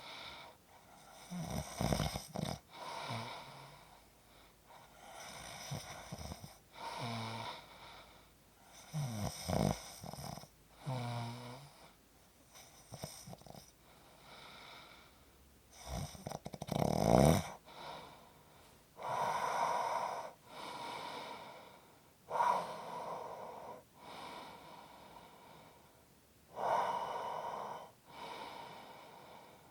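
A person snoring, a breath every two to three seconds. In the first half, several of the breaths come with a low, rattling snore. From about two-thirds of the way in, the breaths turn into heavy, hissing exhales without the rattle.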